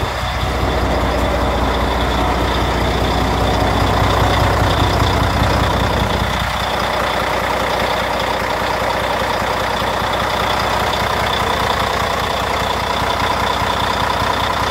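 Diesel engine of a 2007 Volvo 780 semi truck idling steadily.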